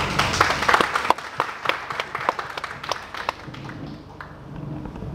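Audience applauding, a dense patter of hand claps that thins out and dies away about four seconds in.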